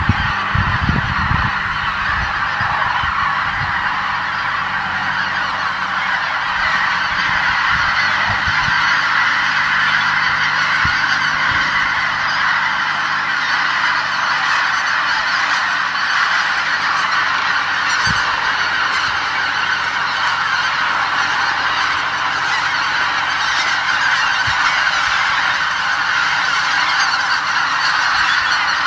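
A huge flock of geese and cranes in flight calling all at once: a dense, unbroken din of honking that holds steady throughout. A few low bumps sound faintly under it about a second in.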